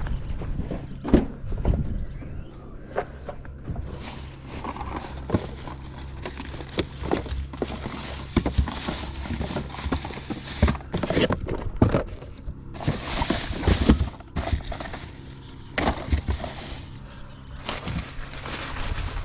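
Rustling with irregular knocks and clunks of fishing gear being handled close to the microphone, over a steady low rumble.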